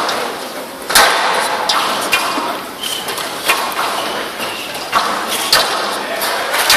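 Squash rally: about seven sharp strikes of the ball off racket and walls, roughly one a second, over the steady noise of a large hall.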